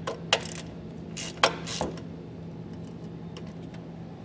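Hand ratchet with a socket on an extension clicking in a few short runs in the first two seconds as it drives a bolt and flat washer down tight, then stops.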